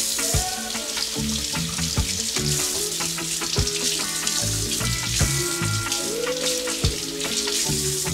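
Kitchen faucet running steadily, water splashing over scallions and an onion rinsed under it in the sink.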